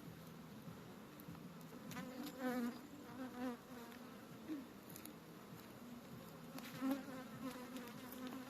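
Honeybees buzzing around an open hive, a steady hum with louder passes as individual bees fly close to the microphone; the bees are agitated and striking at the camera.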